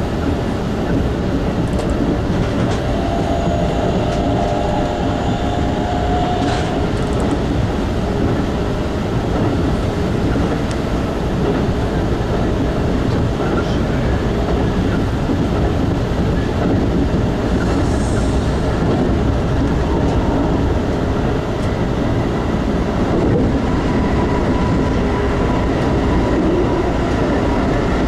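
Keikyu 2100 series electric train running at speed, heard from inside the front cab: a steady rumble of wheels on rail with a few clicks and faint whining tones that come and go.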